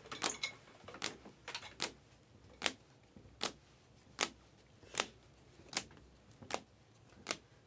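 Sharp clicks at a steady, machine-like pace, about four every three seconds.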